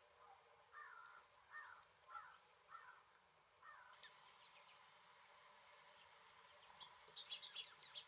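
Faint wild birds: a bird gives a series of five short, harsh calls about two-thirds of a second apart. Near the end comes a quick cluster of high, thin chirps, the loudest part.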